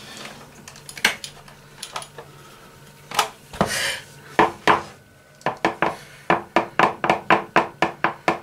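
A metal spoon clinking and scraping against an electric hand mixer's wire beaters to clear cake batter off them. It starts with scattered clinks and a couple of short scrapes, then a quick run of sharp clinks, about four a second, over the last three seconds.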